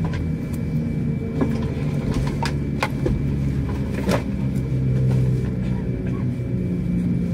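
Steady low hum inside an Airbus A321neo airliner cabin standing at a stop, with a faint steady high-pitched tone and a few sharp clicks, the strongest about four seconds in.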